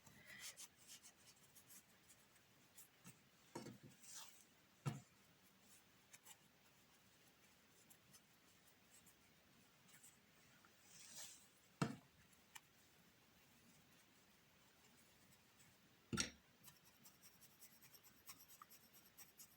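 Faint handling sounds of stuffing being pushed into a small crocheted toy: soft rustling with four sharper light clicks spread through.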